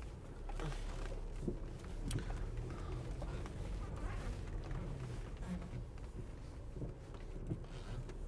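Low, steady rumble of a car's engine and running gear heard inside the cabin as the car is driven slowly into a parking spot, with a few faint knocks.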